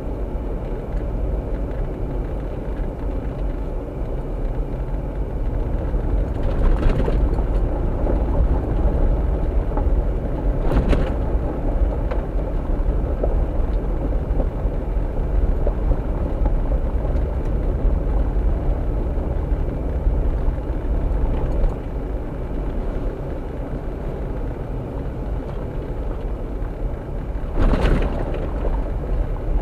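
A vehicle driving: a steady low rumble of engine and road noise, with a few short, sharper noises over it.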